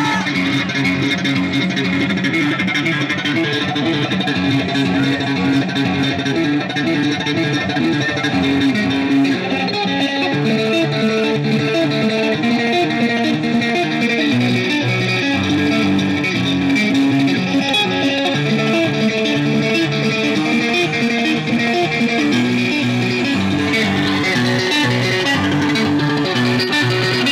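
Live instrumental progressive metal: eight-string electric guitars playing a fast, intricate run of notes, with low notes underneath.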